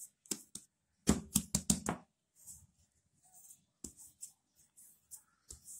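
Hands slapping flour onto a worktop and a rolling pin working over dough: a quick run of sharp, dull knocks about a second in, then a few softer knocks and brushing sounds.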